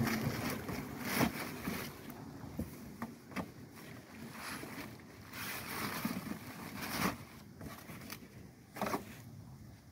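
Plastic packing wrap crinkling and rustling as a new headlight assembly is lifted out of its cardboard box, with a few sharper crackles, the loudest about a second in and near the end.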